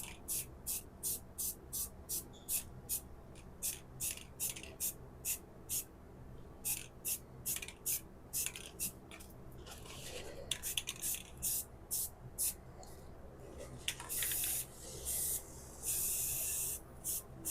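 Hand strokes rubbing over the patched lamp base, about two a second. Several longer hissing bursts follow in the second half.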